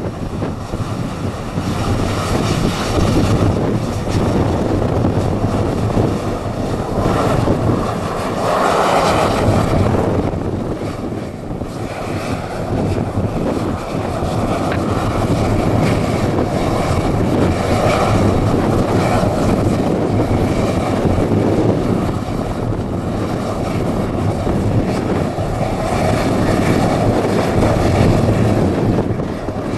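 Airbus A319 jet engines running steadily as the airliner turns and lines up on the runway, a continuous airliner engine noise with a low hum that swells briefly about eight seconds in.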